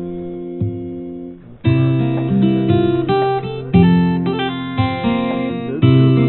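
Background music led by acoustic guitar: a held chord fades away, then about one and a half seconds in a new strummed guitar pattern starts, with chords struck roughly once a second.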